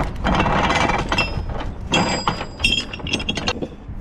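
Anchor chain clattering and clinking through the gypsy of a hand-cranked bronze anchor windlass, a rapid run of metallic clinks, some ringing briefly.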